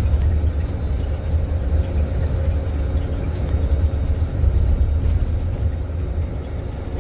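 Bus engine and road noise, a steady low rumble.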